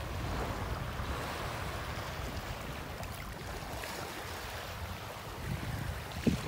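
Sea water rushing and splashing along the side of a moving small boat, with wind buffeting the microphone in a low rumble that grows near the end.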